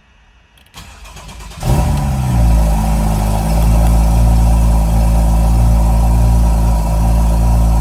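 Porsche Boxster 981S flat-six engine being started: the starter cranks for under a second, the engine catches about a second and a half in with a brief rev flare, then settles to a steady idle.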